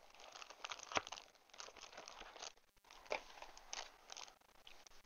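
Clear plastic packet of paper pieces crinkling and crackling as it is picked up and handled. There are sharper crackles about a second in and about three seconds in.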